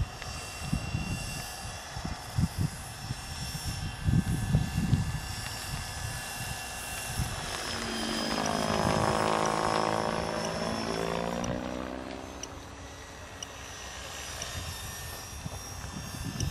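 Gaui Hurricane 550 flybarless RC helicopter flying aerobatics, its rotor and drive making a steady high whine. Wind buffets the microphone in the first few seconds. Around the middle the sound swells while its pitch dips and rises again.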